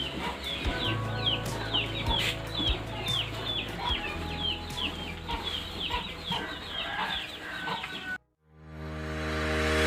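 Chickens calling in a rapid series of short high calls, about two a second, over a steady low hum. The sound cuts off about eight seconds in and music fades in.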